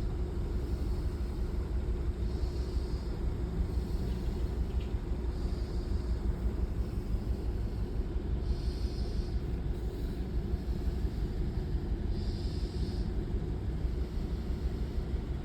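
BMW E46 engine running steadily with a misfire that has set the check-engine light.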